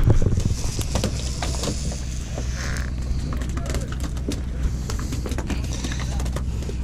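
Sportfishing boat's engine running with a steady low drone, over scattered clicks and knocks of rod and reel being handled at the rail, with a thump right at the start.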